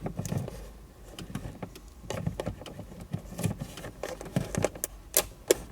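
Scattered light taps and clicks of hands handling and pressing a boost controller being stuck down with double-sided tape.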